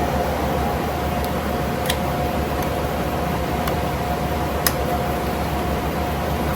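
Steady hum of room fans with a thin constant whine, broken by a few sharp clicks of plastic toy parts being handled and pressed together.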